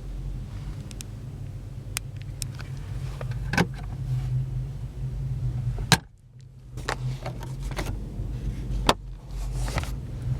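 Steady low hum of the Pontiac G6 GT's 3.5-litre V6 idling, with several sharp clicks and knocks on top; the loudest knock comes about six seconds in, and the hum drops away briefly just after it.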